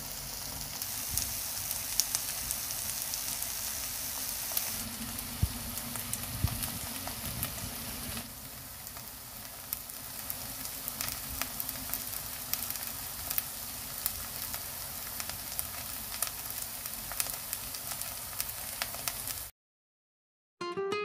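Chive pancake frying in a pan: steady sizzling dotted with many small crackles and pops. It cuts off suddenly near the end.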